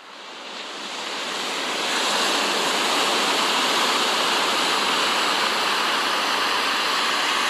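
Steady rushing of wind and heavy seas breaking around a ship's bow, fading in over the first two seconds.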